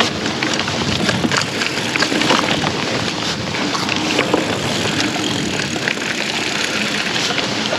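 Mountain bike riding fast over dirt singletrack: a steady rush of tyre and trail noise with frequent clicks and rattles from the bike.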